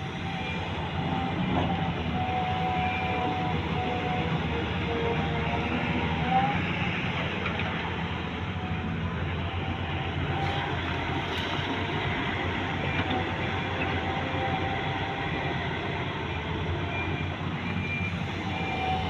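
Volvo EC210B excavator's diesel engine running steadily while it works, a continuous machine drone with faint wavering higher tones over it.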